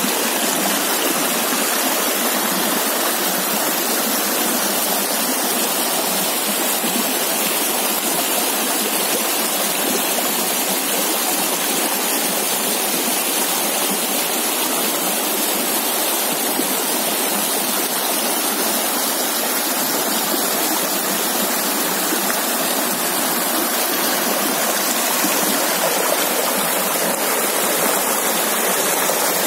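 Small, fast-flowing stream rushing and splashing over rocks in a steady, unbroken rush of white water.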